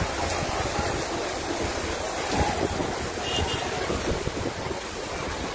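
Steady rush of heavy rain and floodwater running across a street, with wind rumbling on the microphone.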